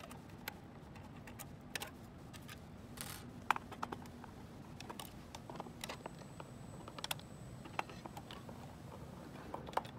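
Irregular small clicks and ticks of a #1 Phillips hand screwdriver turning out small screws from the sheet-metal bracket of an LED video wall module.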